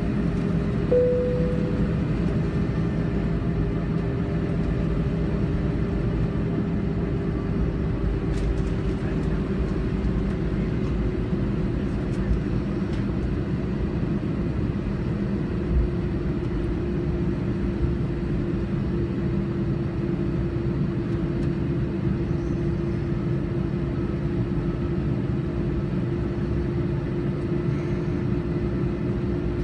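Airbus A321 airliner taxiing, heard from inside the cabin: a steady engine hum and low rumble with a steady whine. A short tone sounds about a second in.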